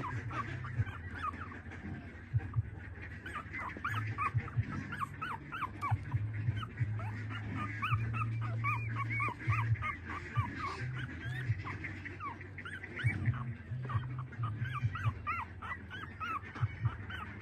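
Newborn puppies squeaking and whimpering as they nurse at their mother's teats, many short high squeaks a second, over a low hum that comes and goes.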